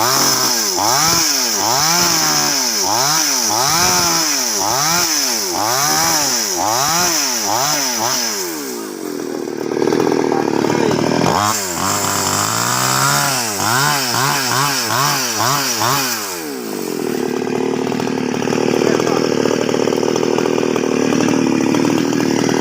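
Two-stroke chainsaw cutting sengon wood, its engine pitch swinging up and down about once a second for most of the first sixteen seconds, then settling to a steadier note.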